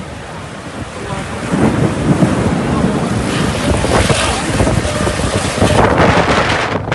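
Storm wind gusting hard and buffeting the microphone, a loud rushing that builds about a second and a half in and surges in gusts.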